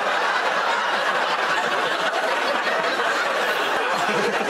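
Studio audience laughing, loud and sustained.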